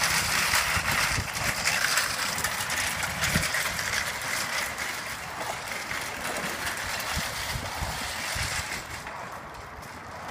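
Shopping cart with a metal frame and plastic basket rolling fast over asphalt, its casters and frame rattling, and getting steadily quieter as it moves away.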